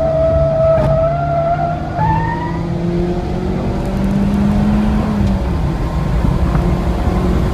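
Mitsubishi Lancer Evolution X's turbocharged 2.0-litre four-cylinder heard from inside the cabin, accelerating hard out of a corner and onto a straight, with one upshift about five seconds in. Tyres squeal through the corner exit during the first two seconds or so.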